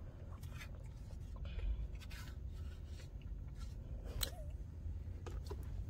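Plastic spoon scraping and clicking against the inside of a paper cup in a few short, separate strokes, over a low steady rumble.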